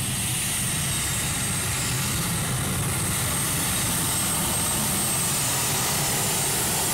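Modified pulling tractor's engine running at full throttle under load while it drags the weight sled down the track, loud and steady throughout.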